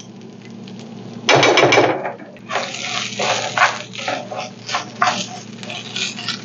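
Wooden spoon stirring raw rice as it is sautéed in a nonstick frying pan: a louder rasping scrape about a second and a half in, then irregular scraping and rattling of the grains against the pan. The rice is being toasted in fat before the beans and water go in.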